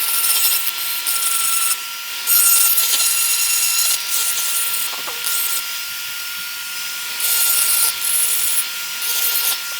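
RotoZip spiral-cut rotary tool running at a steady high whine while cutting away the lip on an old speaker frame, with a hissing grind that swells and eases as the bit bites into the material.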